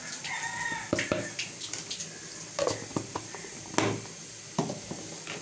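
Onion and garlic frying in oil with a steady sizzle, under a series of sharp clicks and knocks of utensils against the pan as spices are added.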